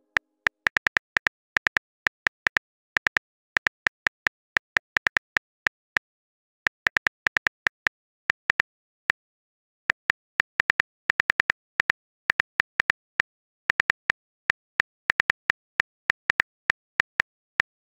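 Simulated phone-keyboard typing clicks from a texting app's sound effect: short, sharp taps in irregular runs of a few per second, with a couple of brief pauses.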